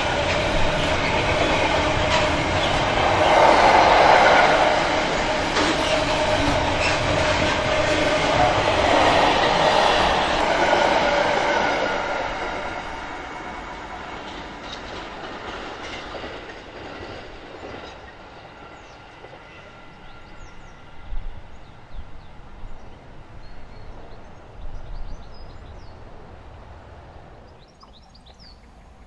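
Freight train rolling past, its wheels clicking over the rail joints with a squealing ring, then fading away about 12 seconds in as the train recedes.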